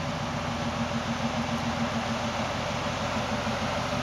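A vehicle engine running steadily, with a low, rapid, even pulse and no change in speed.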